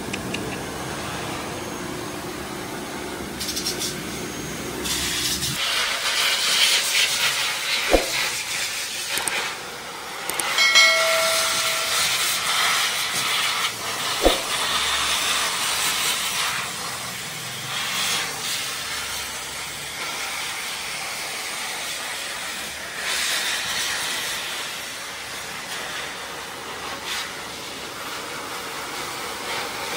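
Hair dryer blowing air onto a wet cat in a wire cage: a steady rushing hiss that thins out about five seconds in. Two sharp knocks and a brief high tone break through it around the middle.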